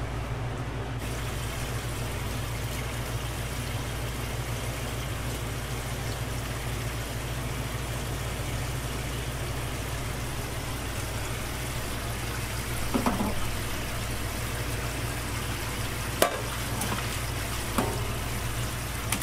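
Kitchen sink tap running steadily, an even hiss of water, over a constant low hum. A few short knocks sound in the last six seconds.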